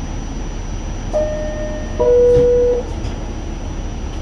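Two-note falling chime of a New York City subway car, the signal that the doors are closing, over the steady rumble of the car. The second, lower note is louder and a little longer.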